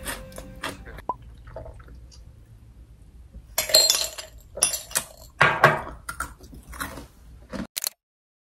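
Close-up eating and drinking sounds: ice clinking in a glass and crunchy chewing, in several loud short bursts from about three and a half to six seconds in, then a few lighter clicks before the sound cuts off.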